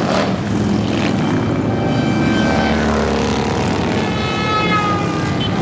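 Engines of a procession of cruiser and touring motorcycles riding past in a dense, continuous rumble. About four seconds in, a higher engine tone slides down in pitch as one bike goes by.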